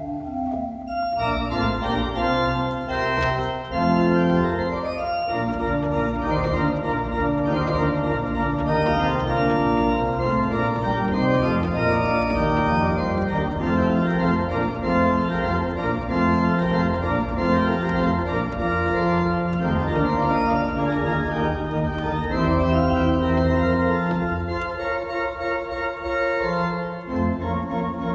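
Organ music: an organist plays sustained, slowly changing chords on a two-manual organ, with a low pedal bass line underneath.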